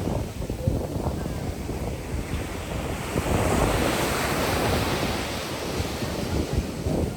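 Ocean surf washing, with wind buffeting the microphone in low rumbling gusts; the surf swells up about halfway through.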